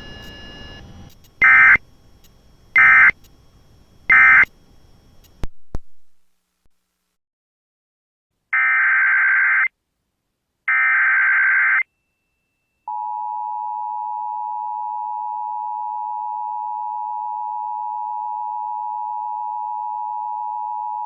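Emergency Alert System signalling. Three short screeching data bursts (the end-of-message code) close the previous alert. After a pause, two longer data bursts begin the next alert's header. Then the steady two-tone EAS attention signal holds for about eight seconds.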